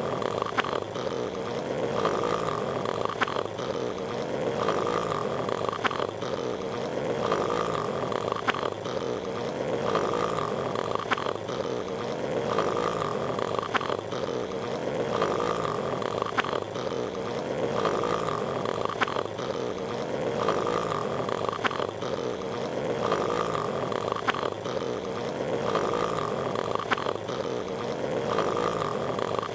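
Patrick Star's cartoon snoring, looped: a rough snore cycle repeating about every two and a half seconds over a steady hiss.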